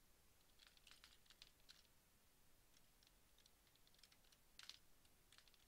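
Faint typing on a computer keyboard: irregular runs of short key taps, with a pause about two seconds in and a louder tap near the end.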